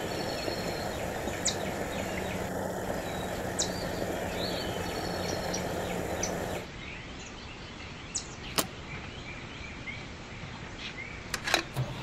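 Steady background noise with small birds chirping now and then. The noise drops suddenly about six and a half seconds in, and a few sharp clicks come near the end.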